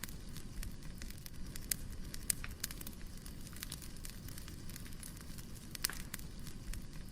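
Firewood burning: a steady low rumble with irregular sharp crackles and pops, several of them louder, the loudest about six seconds in.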